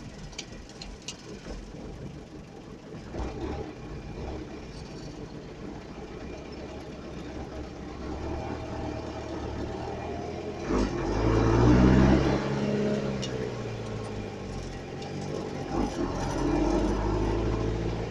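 A vehicle engine comes to life a little before halfway through and is revved once hard, its pitch rising and falling. It then settles into a steady idle, with a smaller rev near the end. A few faint clicks come before it.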